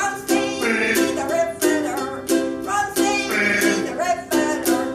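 Ukulele strummed in a steady rhythm, about three strokes a second, playing the closing bars of a song.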